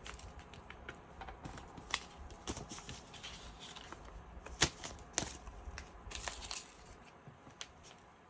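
Paper dollar bills being handled: soft rustling as the notes are picked up and laid down, with a few sharp taps, the loudest a little past halfway.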